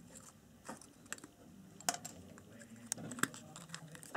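A series of irregular light clicks and taps, a few spread over several seconds, the sharpest about two seconds in and just after three seconds.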